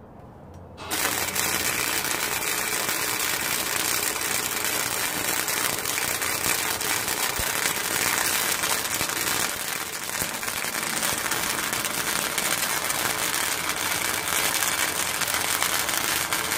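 Electric welding arc crackling steadily as a weld bead is run on steel plate, starting suddenly about a second in and running without a break.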